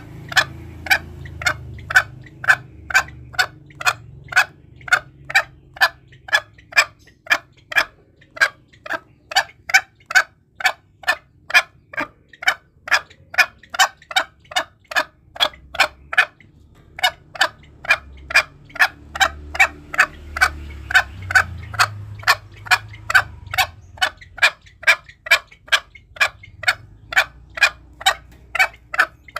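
Green junglefowl giving short, clipped clucking calls over and over, about two a second, with one brief pause midway. This is the call used as a lure to draw wild green junglefowl in for hunting.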